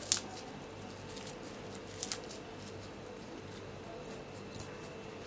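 Fresh mint leaves being crushed and torn by hand over a bowl of marinating chicken: faint rustling with a few soft clicks.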